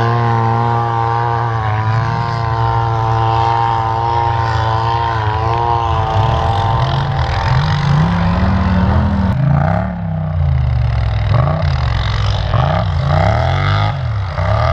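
ATV engine running at a steady speed, then revving up and down over and over from about halfway through.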